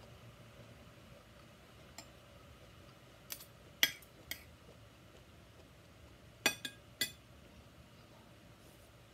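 Metal spoon and fork clinking and scraping against a plate while scooping rice: a few sharp clinks in two clusters, about a third of the way in and again about two-thirds in.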